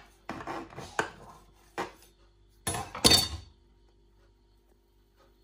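Kitchen knife cutting through a sponge cake and scraping and clicking against the plate beneath it: a few sharp clicks, then a louder clatter about three seconds in, after which the sounds stop.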